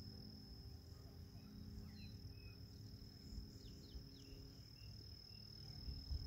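Steady high trilling of crickets, with a low rumble underneath and a faint steady hum, the distant motor of a radio-controlled model plane flying high overhead. A few short bird chirps come in the middle.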